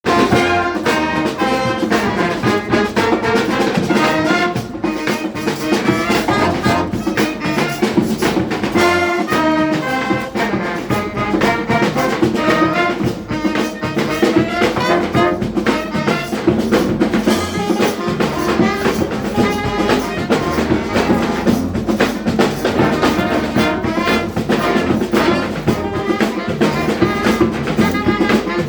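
Instrumental music led by brass instruments, with a steady beat.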